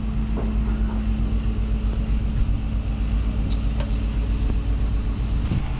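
Boat travel lift's engine running steadily, a constant low rumble with a steady hum.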